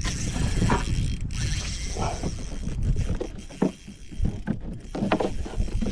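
Wind rumbling on the microphone, with a handful of short knocks and clicks scattered through it.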